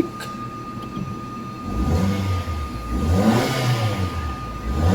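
Mazda3's petrol engine running after starting on the first crank with a new fuel pump assembly fitted, and revved twice, its pitch rising and falling each time, starting about a third of the way in.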